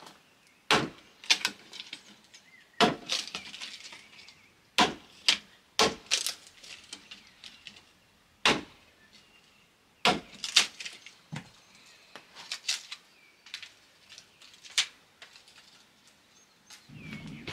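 Hatchet splitting kindling on a wooden chopping block: a dozen or so sharp chops and cracks of splitting wood at irregular intervals, with lighter clatter of sticks falling and being handled between them.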